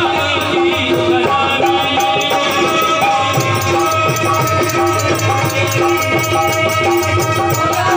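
Live folk devotional music: a harmonium playing a melody of held notes, with small hand cymbals keeping a quick, steady jingling rhythm.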